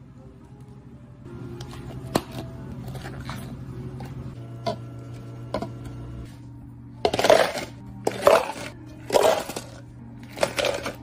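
Ice cubes scooped and dropped into plastic cups: four loud pours about a second apart in the second half. Before them, a few sharp clicks of plastic cups set down on a counter.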